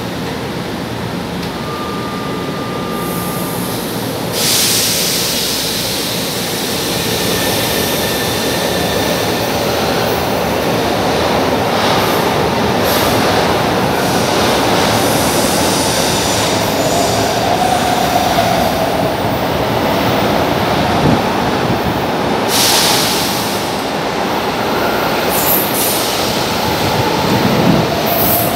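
São Paulo Metro Line 2 train pulling out of the station: after a faint steady tone, a sudden burst of air hiss about four seconds in, then the train's motors and wheels build into loud, steady running noise as it moves off past the platform, with a second burst of hiss near the end.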